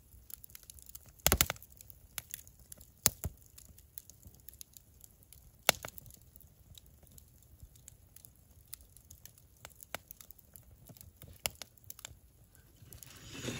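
Campfire wood crackling, with irregular sharp pops and snaps. The loudest is a quick cluster about a second in, with single loud pops near three and six seconds.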